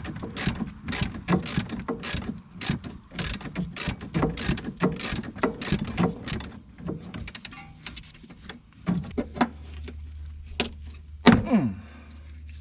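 Ratchet wrench clicking in steady strokes, about two a second, then slowing to a few scattered clicks in the second half as a bolt on the car's underside is worked.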